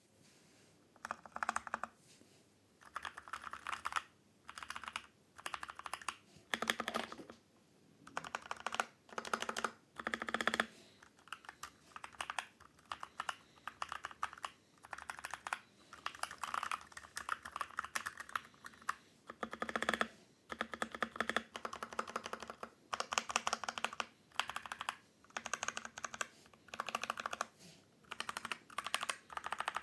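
Typing on an Ajazz AK680 mechanical keyboard with brown (tactile) switches: rapid runs of keystrokes broken by short pauses.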